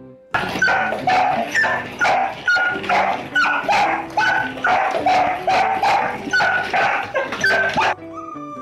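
A dog barking loud and fast, two to three sharp barks a second, for most of the clip. Near the end it cuts to a puppy's drawn-out howl falling in pitch, over soft music.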